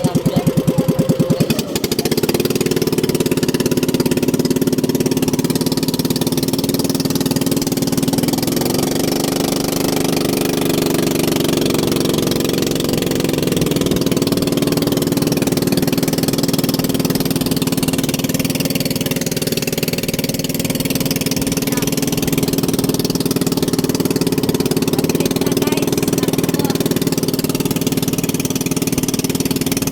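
A small engine running steadily at close range, its pitch rising briefly and settling about nine seconds in. It opens with a second or so of louder, rapid pulsing.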